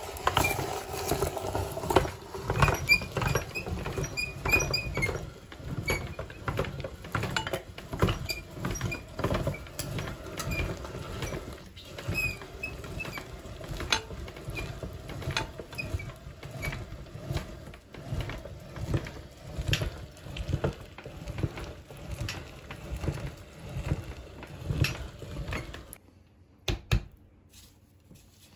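Hand-cranked cast-iron meat grinder crushing frozen ice pops and their wooden sticks: uneven crunching and grinding with clicks from the auger and crank. The grinding stops about 26 seconds in, followed by a couple of light taps.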